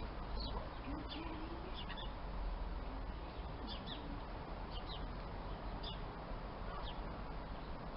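Small birds chirping in short, high calls at irregular intervals, over a steady low rumble of wind on the microphone.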